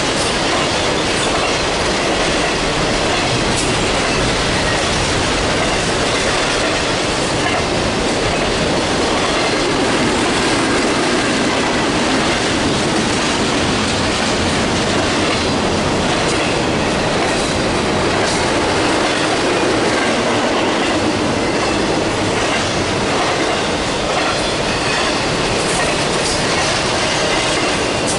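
Double-stack intermodal freight cars rolling past on a curve: a steady, loud rumble of steel wheels on rail, with a faint high wheel squeal from the curve.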